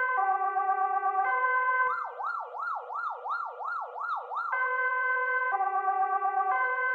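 Swedish police siren alternating between two tones about once a second, switching about two seconds in to a fast up-and-down yelp, roughly three sweeps a second, then back to the two-tone pattern near the halfway mark.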